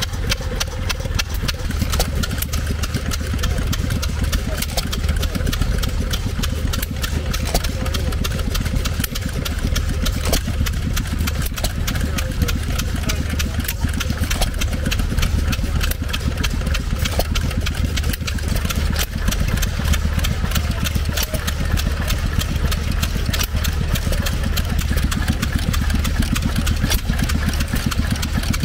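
Stationary engine running steadily, a rapid even run of firing beats over a low hum.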